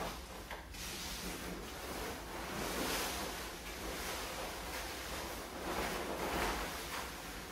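Plastic tarp rustling and crinkling as a load of freshly mixed wet concrete is carried in it, swelling louder twice.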